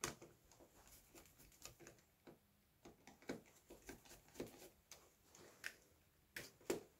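Faint scattered clicks and scrapes of a screwdriver working the terminal screws of a small solid-state relay, with wires being handled.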